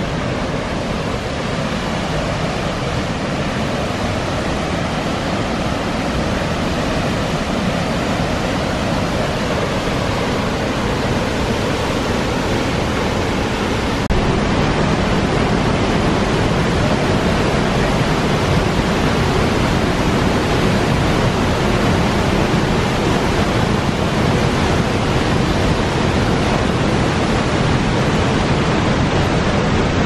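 Steady rushing of High Force waterfall and the River Tees below it: a loud, even wash of falling water that steps up in loudness about halfway through.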